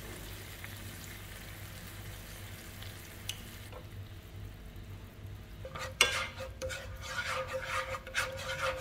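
Wooden chopsticks stirring a fish-sauce and sugar sauce in a nonstick frying pan. The first half is faint, with a low hiss. From about six seconds in the chopsticks knock once sharply against the pan, then scrape and stir in quick strokes.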